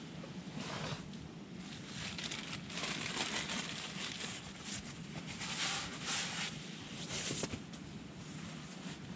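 Rustling and crinkling of a plastic bag and a rolled sleeping mat being pulled out of a backpack and unrolled, in irregular bursts.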